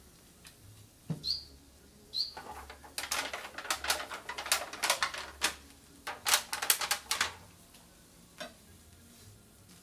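Two short high chirps about a second apart from a pet bird, then about four seconds of sharp crackling and crinkling as packaging is handled.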